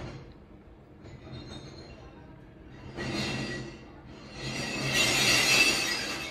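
Glass recycling being collected: bottles crashing and clattering as a bin is emptied, in two swells, the second longer and louder from about four and a half seconds in, over a low steady hum.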